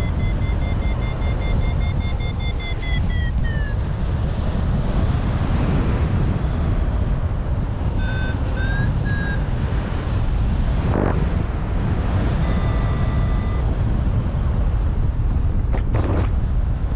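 Airflow rushing over the microphone in paraglider flight, a steady low roar. A variometer beeps fast in two tones over it; the beeping falls in pitch and stops about three and a half seconds in. Shorter runs of beeps come around eight and twelve seconds in, and two sharp clicks are heard near the end.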